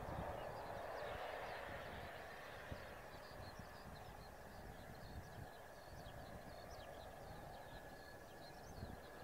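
F-2 fighter's F110 jet engine running at low power with a steady high whine and a distant rush, loudest at first and easing off as the jet rolls away down the runway. Small birds chirp over it from about halfway through.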